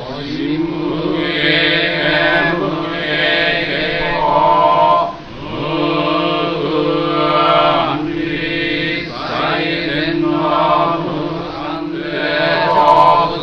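Buddhist sutra chanting in a steady, droning low monotone for a memorial service, with a short break for breath about five seconds in.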